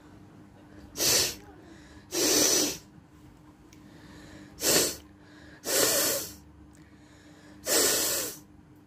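Five loud, forceful blasts of air through a person's nose, a second or two apart; the second, fourth and fifth last longer than the others. A faint steady hum lies underneath.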